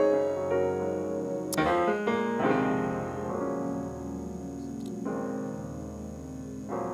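Soft electric-piano chords played on a Korg Kronos keyboard workstation, held and slowly changing, with a fresh chord struck about a second and a half in.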